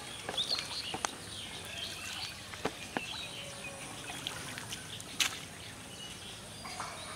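Water trickling and dripping off a lifted fishing net into the canal, with birds chirping. A few sharp clicks sound through it, the loudest about five seconds in.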